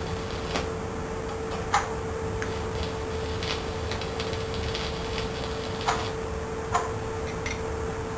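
Stick welder dabbing short arcs at low amperage around a burn-through hole in thin sheet metal, like a series of tack welds. Each dab gives a sharp crack, scattered irregularly; the loudest come about two seconds in and twice near the end, over a steady hum.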